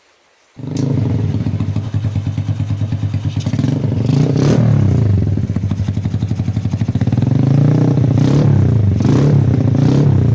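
Honda TMX 125 Alpha's single-cylinder four-stroke engine running through an aftermarket exhaust muffler. It comes in suddenly about half a second in, idling with a fast pulsing beat. It is revved up briefly twice, once around the middle and again near the end.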